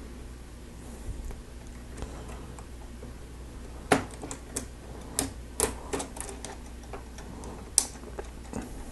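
Plastic Lego Technic parts being handled and pressed together: a quiet start, then irregular sharp clicks from about four seconds in, the loudest near four and eight seconds in.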